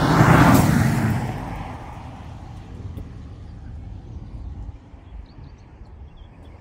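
Car passing at speed across the finish line of a 1/8-mile drag run, loudest about half a second in, then its engine noise fading away as it goes on down the runway.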